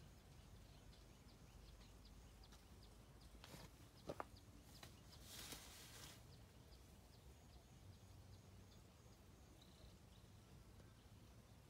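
Near silence: faint rural ambience with soft high chirps repeating a couple of times a second, a few light clicks, and a brief rustle about five seconds in.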